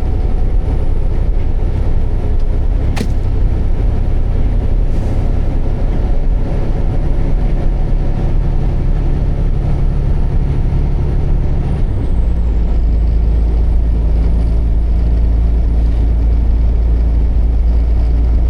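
Truck diesel engine running steadily with a low rumble. Its note shifts about twelve seconds in, and there is a single sharp click about three seconds in.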